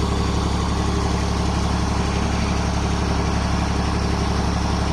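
Excavator engine running steadily, a low, even hum with no change in speed.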